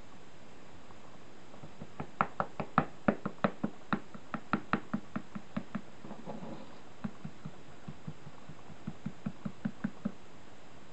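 A paintbrush tapping on a hard surface in quick runs of light knocks, about four or five a second: a run of about four seconds starting about two seconds in, and a shorter, softer run near the end.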